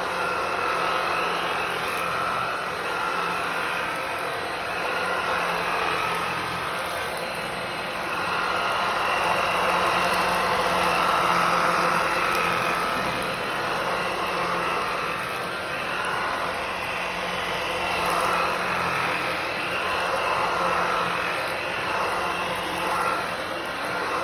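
Womow W20 cordless stick vacuum cleaner running as it vacuums a carpet rug: a steady motor whine whose loudness rises and falls a little.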